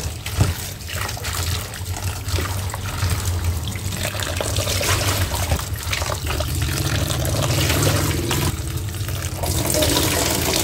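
Tap water running into a plastic bowl of cassava leaves in a stainless steel sink, with splashing as hands swish and rub the leaves in the water. Near the end the bowl is tipped and the water pours off into the sink.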